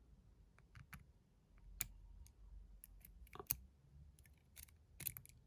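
Irregular small metallic clicks and taps from an antique pin-tumbler mortice lock cylinder being taken apart by hand, its plug and pins being handled, with a pair of sharper clicks about three and a half seconds in and again near the end.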